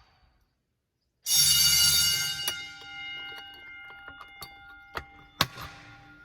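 Fire alarm bell set off by a pull station: it sounds loudly for about a second, starting suddenly a little over a second in, then its ringing tones fade slowly while a few clicks and knocks are heard. The alarm shows that the suspect pull station has tripped this time.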